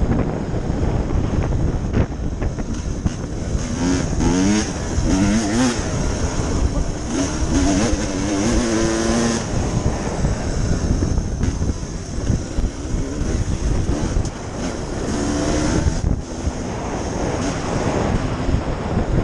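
2014 Husqvarna TE300 dirt bike's single-cylinder two-stroke engine being ridden hard, its pitch rising and falling as it revs up and down several times, over a constant rumble.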